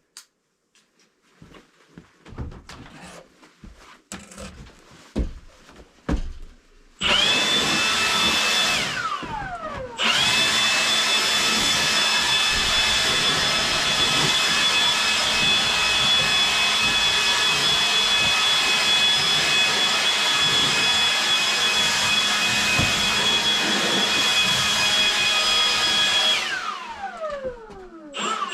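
An electric power tool's motor switched on abruptly, running at a steady high whine. It is switched off and winds down with falling pitch after about two seconds, then restarted and run steadily for about sixteen seconds before winding down again. Scattered clicks and knocks come before it.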